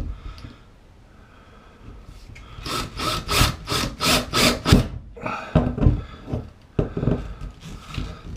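A single knock, then two runs of rapid scraping strokes, about three or four a second, of wood rubbing or sawing during work on a drywall ceiling patch.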